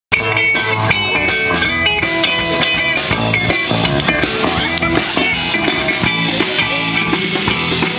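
Live rock band playing, with electric guitars and a drum kit amplified through loudspeakers; the music cuts in suddenly at the start.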